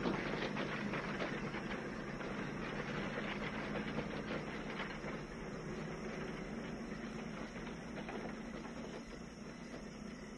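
Steady mechanical clattering and rattling with a low rumble from working harvest machinery and rolling wagons, gradually fading near the end.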